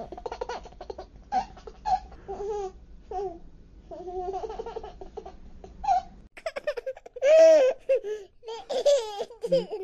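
A baby babbling and laughing in short, high-pitched calls, loudest about seven seconds in.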